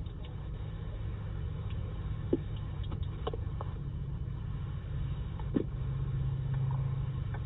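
Low steady rumble with a few faint clicks; a low hum in it grows a little louder about six seconds in.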